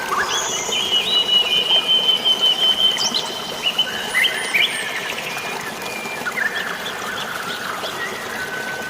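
Birds calling: long held whistled notes and short chirps, busiest in the first few seconds, with a single held whistle near the end, over a steady rush of flowing water.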